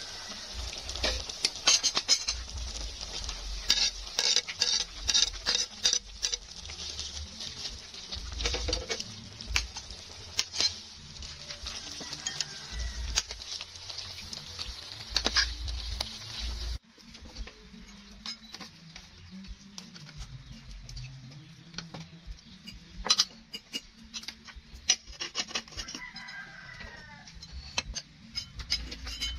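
A metal ladle and spoon clink and scrape against a cooking pot and an enamel bowl as soup is stirred and served, over the steady hiss of the pot boiling; the hiss stops suddenly about halfway, leaving sparser spoon clinks. A rooster crows in the background near the end.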